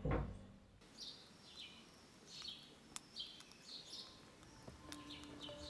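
Budgerigar chirping: short high chirps repeated every half second or so. A thump comes at the very start, and soft held music notes come in near the end.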